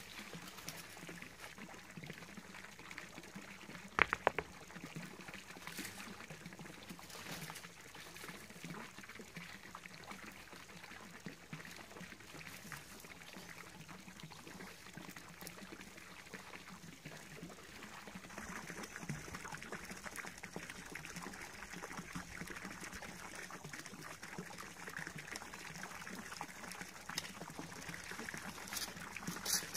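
Small garden-pond fountain splashing steadily as its jet falls back into the water. A couple of sharp knocks come about four seconds in.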